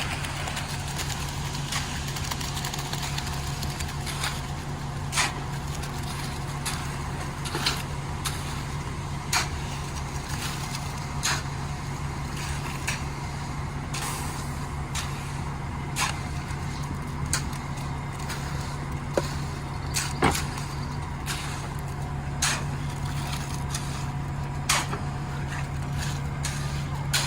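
Concrete mixer truck's diesel engine running steadily, with sharp knocks and clicks every second or two.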